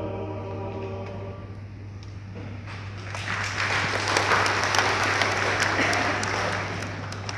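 The last sung chord of a church choir fades away. About three seconds in, applause starts, grows fuller, then thins out near the end.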